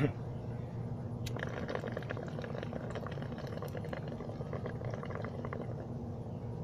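Water bubbling in a wooden bong as a person draws a long hit through it, a steady rapid gurgle that starts about a second in.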